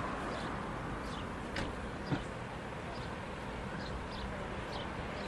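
Steady outdoor background noise with short high bird chirps several times over it, and a single brief knock about two seconds in.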